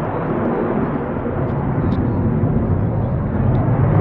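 Jet noise from the RCAF CF-18 Hornet's twin General Electric F404 turbofans in flight: a steady rushing noise that swells slightly toward the end.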